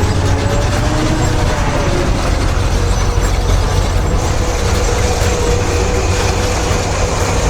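Heavy construction-machine engine running: a loud, steady low rumble with a rattling, clattering edge.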